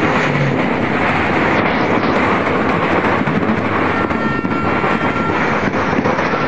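A steady, loud din of many fireworks going off at once in the distance, a dense crackling that merges into a continuous roar.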